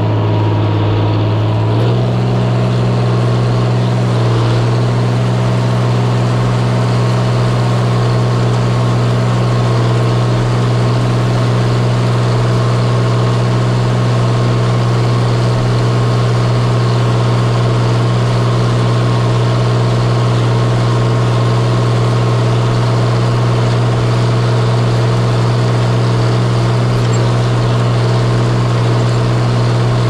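Engine of an old Oliver tractor, heard from the driver's seat. Its speed steps up about two seconds in, then it runs steadily at a constant speed.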